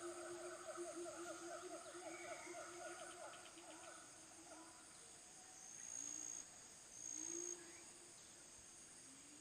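Faint forest animal chorus: a steady high chirring of insects throughout, with a fast pulsed low trill from some animal that fades out in the first half. Two short, high, steady whistled notes about six and seven seconds in are the loudest sounds.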